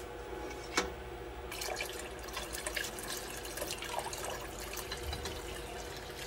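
Vinegar poured in a stream from a measuring cup into a stainless-steel pot of soy-sauce brine, splashing into the liquid from about a second and a half in, after a single light knock. A steady hum runs underneath.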